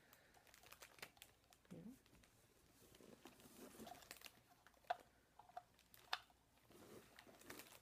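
Near silence with a few faint clicks and light handling as magnetic resin ears are fitted onto a ball-jointed doll's head; the two clearest clicks come about five and six seconds in.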